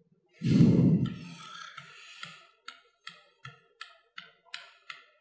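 A loud thump or boom, then a string of evenly spaced sharp clicks, about three a second, each dying away quickly.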